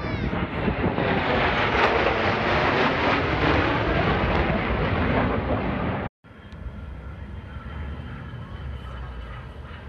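Jet roar of four F-16 fighter jets flying in tight diamond formation overhead, loud and steady. About six seconds in it cuts off abruptly and gives way to a fainter jet rumble with a thin whine as the jets fly farther off.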